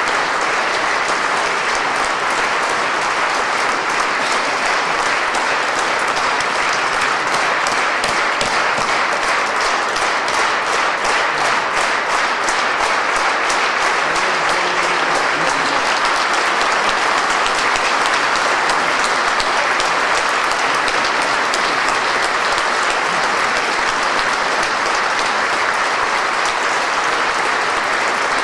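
Concert audience applauding steadily, the claps falling into an even, rhythmic beat for a while in the middle.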